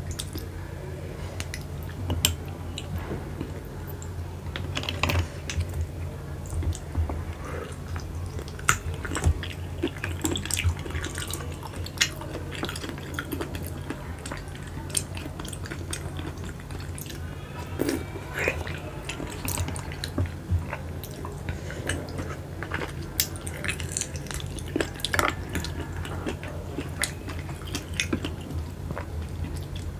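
Close-up eating sounds of spotted babylon snails (keong macan) in chili sauce: wet sucking and chewing, with the hard shells clicking against one another and the glass plate at irregular moments. A steady low hum sits underneath.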